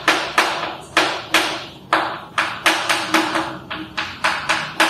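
Chalk writing on a chalkboard: a quick run of sharp taps and short scraping strokes, about three a second, as Korean letters are written.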